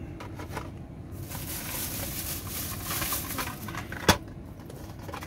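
Thin plastic shopping bag crinkling and rustling as a hand rummages through it for a blister-packed toy car, with one sharp click about four seconds in.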